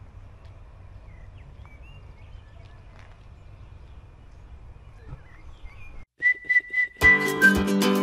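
Outdoor ambience: a low steady rumble with a few faint bird chirps. About six seconds in it cuts off, and background music begins: a whistled tune over a steady beat.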